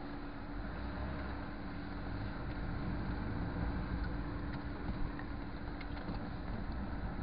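Moskvitch car engine running as the car drives off at low speed, heard from inside the cabin: a steady drone that grows slightly louder.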